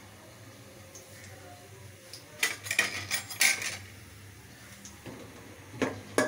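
Metal slotted spoon clinking and scraping against the inside of an aluminium pot while stirring whole spices frying in hot oil and ghee. A quick cluster of sharp clinks comes about two and a half seconds in, with a few more near the end.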